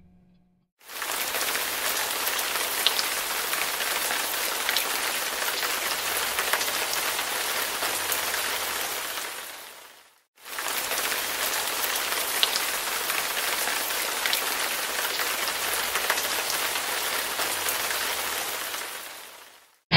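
Steady rain in two stretches of about nine seconds. Each stretch fades in and tapers off, with a short break near the middle.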